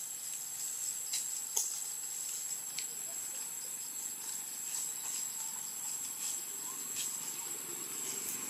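Steady high-pitched insect drone, with a few faint ticks scattered over it.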